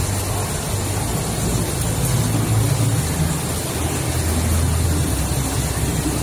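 Steady low rumble and hiss of exhibition-hall background noise.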